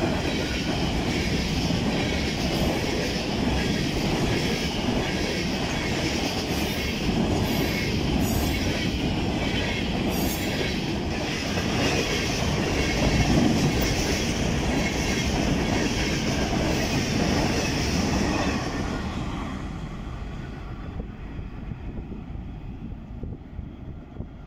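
Freight train's hopper cars and boxcars rolling past close by: a steady wheel-on-rail rumble and clatter that fades away from about three-quarters of the way through as the train moves off.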